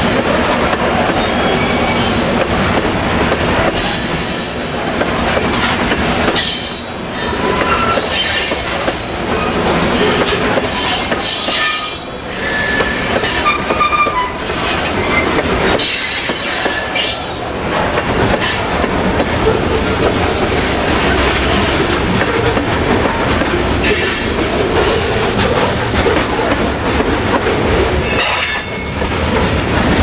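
Freight train of covered hopper cars rolling past close by: a steady, loud rumble of steel wheels on rail with clickety-clack over the joints, and short, thin wheel squeals, mostly in the first half.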